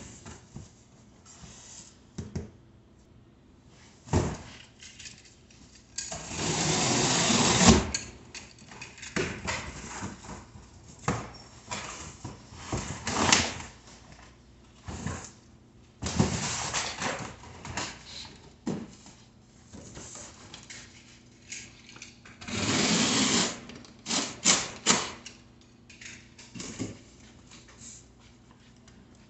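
Cardboard bike box being opened and the bicycle and its parts taken out and handled: scattered knocks and clatter, with three longer noisy stretches of one to two seconds of cardboard and packing being worked.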